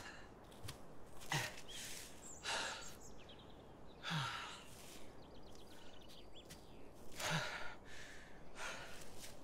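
A man breathing hard: a series of heavy, sighing breaths, about five of them, each a second or more apart, some with a short low voiced edge.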